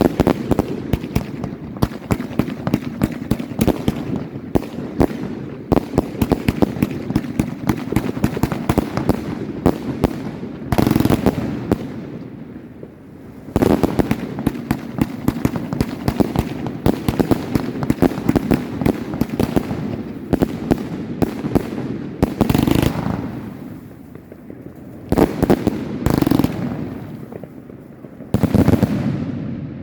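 Firework battery (Funke Shock Wave) firing a rapid string of sharp bangs, several a second, broken by a few brief pauses.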